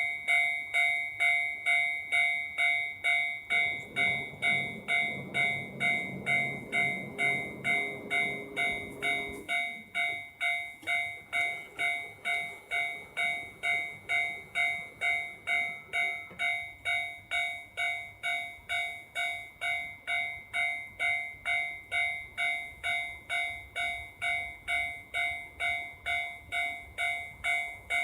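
Japanese level-crossing electronic warning bell ringing steadily at about two strikes a second. From about 4 to 9 seconds in, a JR Hokkaido KiHa 261 series diesel express train passes with a rumble of engines and wheels under the bell.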